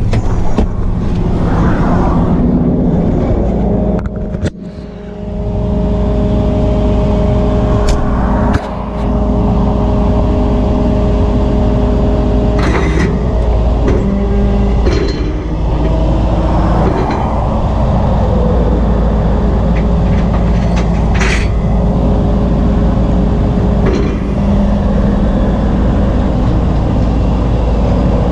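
A tow truck's engine gives a heavy, steady low rumble. It is heard first from inside the cab while driving, then, after a brief dip about four seconds in, with the truck stopped on a highway shoulder as traffic passes. A few brief sharp noises stand out along the way.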